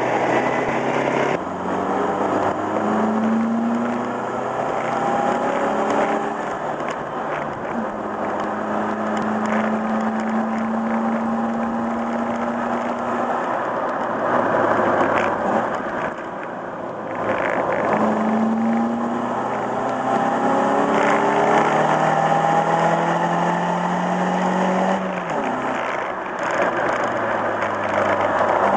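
A vehicle's engine pulls through the gears on a drive. Its pitch climbs in several runs and falls back at each shift, holds steady for a few seconds in the middle, then climbs again and drops sharply near the end. Steady road and wind noise runs beneath it.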